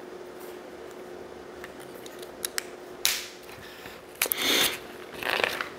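Small plastic clicks and brief rustles of LEGO pieces being handled and pressed together, over a faint steady hum.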